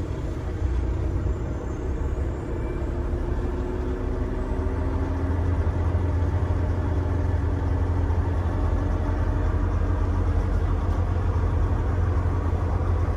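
Volvo semi truck's diesel engine running as the truck is driven, a steady low drone whose note drifts slightly a few seconds in.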